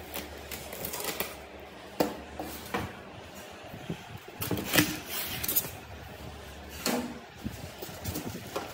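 Polystyrene foam packing being pulled out along the side of a cardboard box: irregular rubbing, scraping and knocking of foam against cardboard and plastic wrap. There is a busy stretch of handling noise around the middle, and it is loudest about five seconds in.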